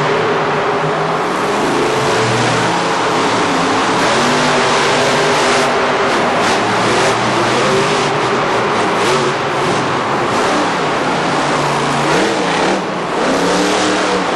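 Monster truck engines, supercharged V8s, revving up and down again and again as two trucks race, over a steady wash of noise.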